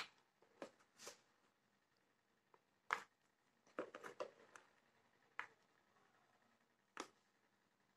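Near silence broken by faint, scattered clicks and scrapes of a plastic scoop digging crumbly jaggery out of a plastic tub and into a plastic measuring cup.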